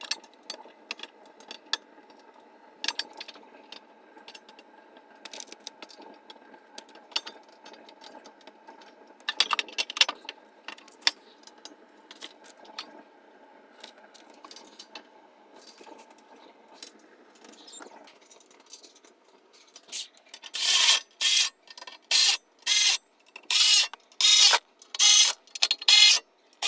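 Hand tools and metal parts being handled while an air compressor is put back together: scattered small clicks and knocks, then, from near the end, a regular run of loud rasping strokes about two a second.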